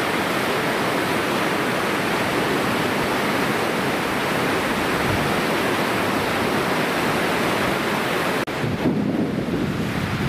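Floodwater of a swollen river rushing through the arches of a stone bridge: a loud, steady rush. About eight seconds in it changes abruptly to a lower, uneven rush with wind buffeting the microphone.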